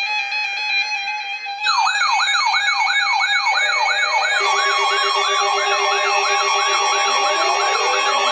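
Several weather radio receivers set off by a winter storm warning. A steady alert tone plays first. From about two seconds in comes a loud wailing siren that rises and falls about two to three times a second, and more wailing alarms join partway through, the last ones lower in pitch.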